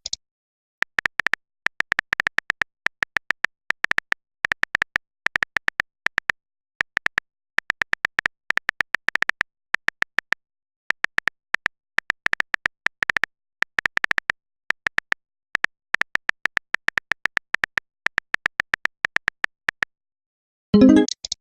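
Runs of quick, sharp, high-pitched clicks in irregular bursts, a keyboard-typing sound effect. A short, louder sound comes near the end.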